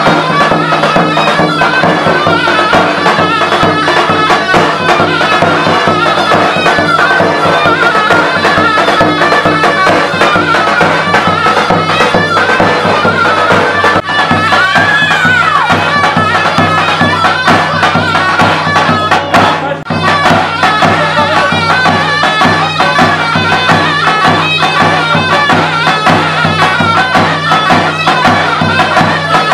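Turkish folk dance music: a wind-instrument melody over a steady drone, with a short break about twenty seconds in.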